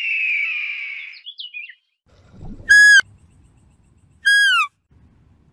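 An eagle's harsh scream, falling slightly in pitch over about a second and a half. Then, after a pause, deer give two short, loud, high whistled calls about a second and a half apart, each dropping in pitch at the end.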